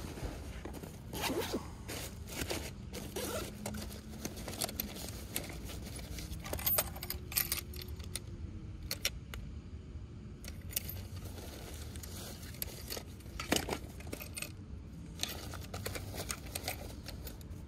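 Zipper and rustling of a fabric tackle bag being opened and rummaged through, with scattered clicks and rattles of gear as a handheld digital fish scale is taken out.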